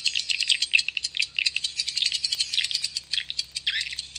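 Recorded swiftlet calls played through two horn tweeters: a rapid, dense chatter of short, high chirps and clicks. These are lure sounds (call and roosting sounds) used to draw swiftlets into a nest house.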